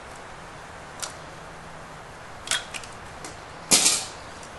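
A few sharp metal clicks and clinks as the brass gas orifice is screwed onto the main burner's manifold, with a louder clatter of metal parts just under four seconds in.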